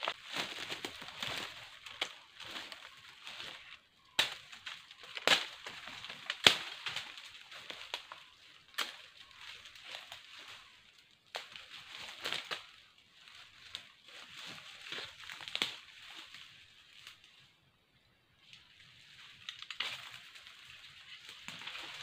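Footsteps crunching and rustling through dry leaf litter and undergrowth, with several sharp snaps of sticks breaking, clustered in the first half. The sound drops away briefly a little after the middle before the rustling resumes.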